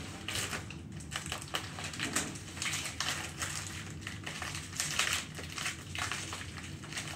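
Plastic poly mailer bag crinkling and rustling in irregular bursts as hands pull and work at it to get it open.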